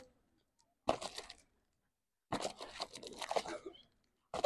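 Indistinct voices talking in two bursts, a short one about a second in and a longer one from a little past the middle, with dead silence between them.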